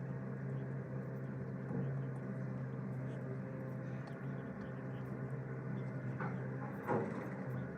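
Steady low mechanical hum, like a motor or household appliance running, with a brief louder sound near the end.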